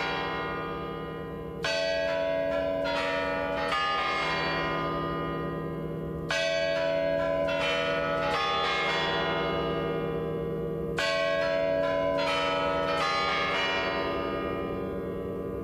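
Kremlin Spasskaya Tower clock bells chiming the New Year midnight melody: three groups of struck bell notes, a new group about every five seconds, each note left to ring and slowly fade.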